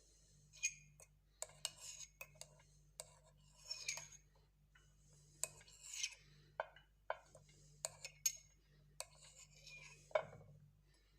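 A metal spoon scraping and clinking against a glass in short, irregular strokes as lemon pulp and seeds are worked out of the juice. The sound is faint.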